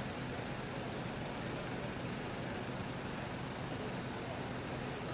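Steady low hum of a coach's engine idling, with a faint high whine above it.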